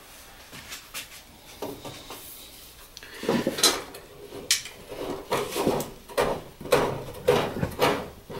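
Handling noises as a rubber-jacketed power cord is pulled through a plastic liquid-tight connector and worked inside a metal electrical enclosure: cable rubbing and knocking against the cabinet. Quiet for about the first three seconds, then a run of irregular short scrapes and knocks, roughly two a second.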